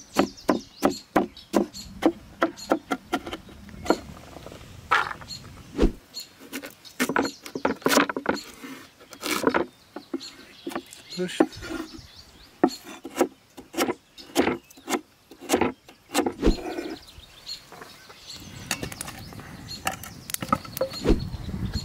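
Kitchen cleaver and knife chopping vegetables on a wooden board: a fast run of knocks, about four a second, in the first few seconds, then slower, sparser cuts. Near the end, a hatchet splits kindling with a heavier blow.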